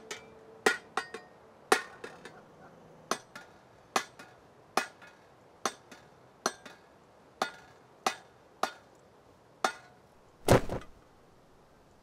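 A hand hammer tapping on metal in a slow, even rhythm, about one stroke a second, each tap ringing briefly. Near the end comes one louder, heavier knock.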